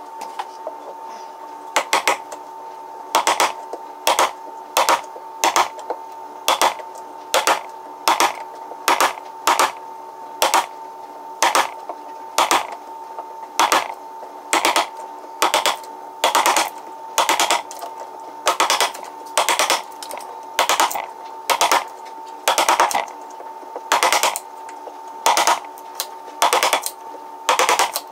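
Wood chisel chopping repeatedly into a wooden hive top board, chipping out the wood in short sharp strokes at roughly one to two a second.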